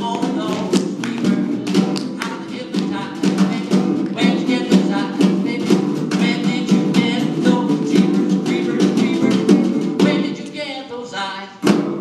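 Tap dancing in metal-tipped tap shoes on a wooden floor, fast rapid taps, with snare drum and guitar accompaniment. The playing thins out near the end and closes on one sharp final hit.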